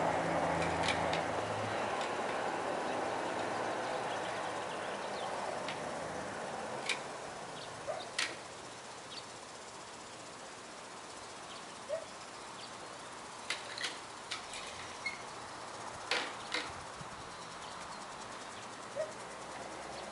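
Outdoor ambience: a passing car fading away over the first few seconds, then a steady faint hiss with scattered sharp clicks and a few short bird chirps.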